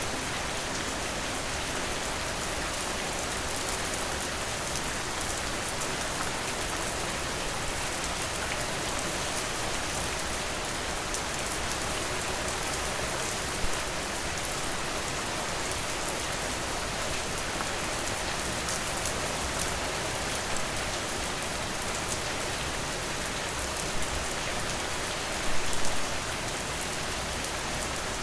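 Steady rain falling on a porch, a dense even patter of drops. A few louder single pops or taps stand out, one about halfway through and a short cluster near the end.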